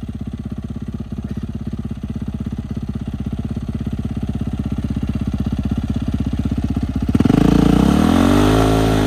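Dirt bike engine idling with an even pulse, slowly getting louder. About seven seconds in it revs up with a rush of noise, its pitch climbing and then falling back, as it starts a burnout with its rear wheel pressed against an ATV tire.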